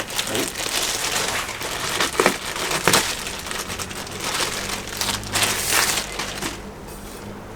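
Packaging crinkling and rustling as an item is unwrapped by hand, with many irregular crackles that die down near the end.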